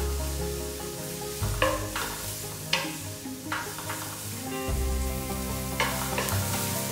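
Shredded bean sprouts and carrot sizzling in oil in a nonstick frying pan, stirred and tossed with a wooden spatula, with a few louder scrapes of the spatula through the vegetables.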